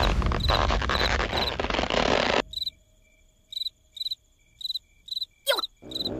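Cartoon sound effect of crickets chirping, about two chirps a second. For the first two seconds or so the chirps sit over a loud, noisy rush that cuts off suddenly. The chirps then carry on alone, with one quick falling whistle near the end.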